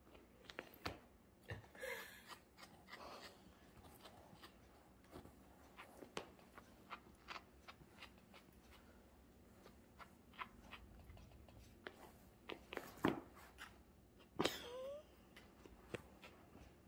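Faint, scattered rustling, scratching and ticks of two cats pawing and biting a fabric cat pillow on a rug. A sharp click comes about thirteen seconds in, and a short rising squeak a second or so later.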